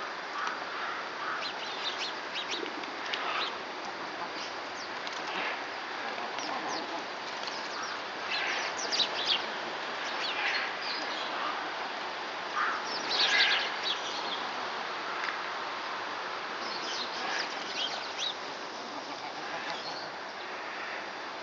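Birds calling in scattered short bursts, loudest in clusters about nine and thirteen seconds in, over a steady background hiss.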